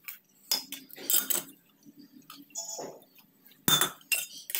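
A metal spoon clinking and scraping against a stainless steel bowl in a handful of short strokes, as flour is stirred with boiling water into dough.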